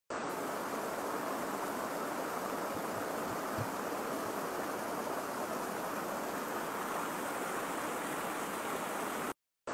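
Shallow stream rushing over rocks and small cascades, a steady, even rush of water. It cuts out briefly near the end.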